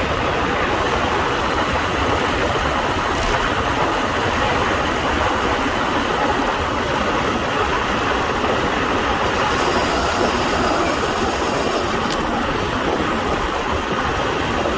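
Steady rush of wind and road noise on a microphone mounted on a road bike as it rides along at speed.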